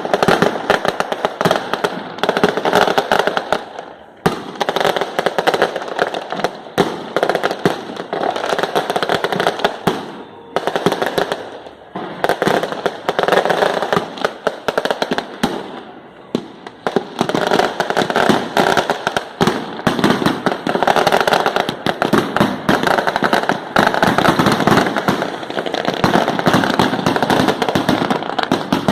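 Fireworks and firecrackers going off in rapid, dense strings of bangs and crackles, with a few short lulls.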